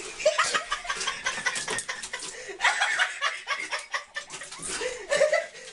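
A person laughing in short bursts.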